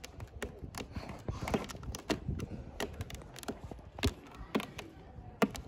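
A cat clawing at a carpet-covered board: irregular claw taps and scratches, a dozen or more sharp strokes unevenly spaced.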